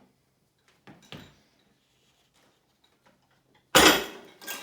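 A few faint handling clicks, then near the end a sudden loud clank and thud of the plate-loaded anvil grip implement, about 134 pounds of weight plates, as it comes off or drops back to the floor during a one-handed lift.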